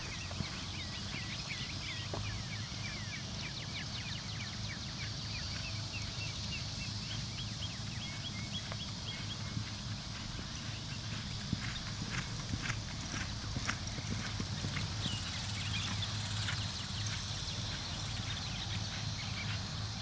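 Hoofbeats of a two-year-old Quarter Horse gelding loping on arena dirt, with a run of quick high chirps through the first half.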